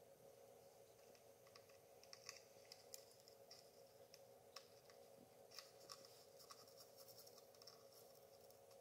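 Faint, irregular scratching and ticking of a thin rod poking and dragging through sand between the glass panes of a sand-art frame, over a faint steady hum.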